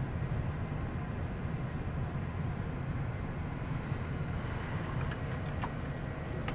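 Steady low rumble of a Gulfstream G550's cockpit on the ground, its Rolls-Royce jet engines running at idle. A few faint clicks come about five seconds in.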